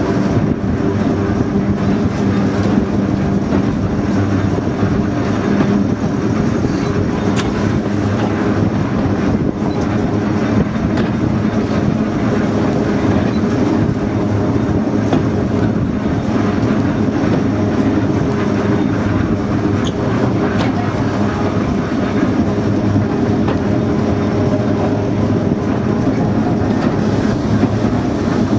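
British Rail Class 11 diesel shunter running steadily under power, its engine giving a constant hum, with the rumble of the slowly rolling brake van and scattered clicks and knocks from wheels and couplings.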